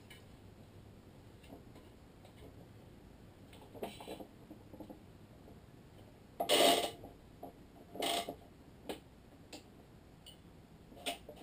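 Scattered clicks and knocks of hand work on a badminton racket stringing machine, as its clamps, strings and tools are handled. The loudest is a short clatter about six and a half seconds in; smaller knocks come around eight, nine and eleven seconds.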